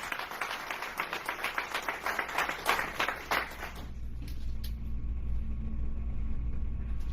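Audience clapping for about four seconds, then thinning out and dying away, leaving a steady low hum.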